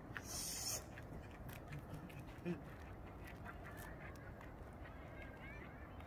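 Faint, steady outdoor background noise, with a short burst of hiss near the start, a few faint chirps, and a brief low sound about halfway through.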